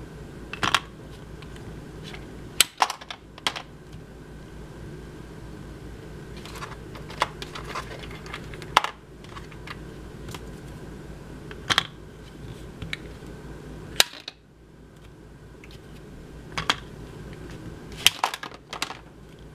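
Plastic clicks and clacks from a toy mini bowling game: a hand-worked launcher flicks a small plastic disc down a cardboard lane at plastic pins. About a dozen sharp clicks come at irregular intervals over a faint steady hum.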